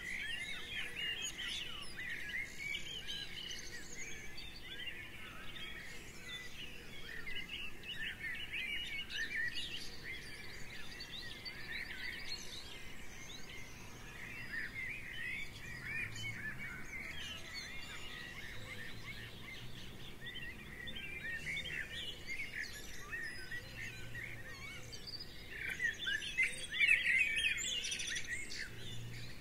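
Garden birdsong: a dense chorus of small birds chirping and singing, with quick high chirps and trills overlapping continuously and swelling loudest near the end.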